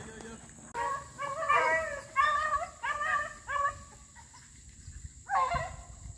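Beagles baying on a rabbit's track: several overlapping bays for about three seconds, then one more bay about five seconds in.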